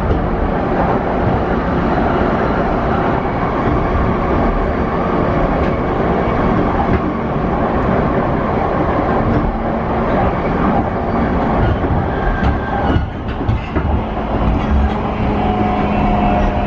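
Interior running noise of a JR East E235-0 series electric train with SiC VVVF traction inverters: steady rumble of wheels on rail with some rail-joint clatter, and faint steady inverter and motor tones. Near the end clearer, higher tones come in as the train nears a station.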